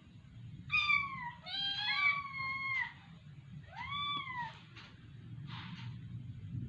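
Cat meowing: about four short meows close together in the first few seconds, some falling and one rising then falling in pitch, followed by a few soft rustles.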